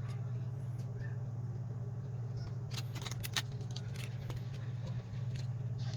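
Small sharp clicks of tools and plastic phone parts being handled during disassembly, bunched about three seconds in, over a steady low hum.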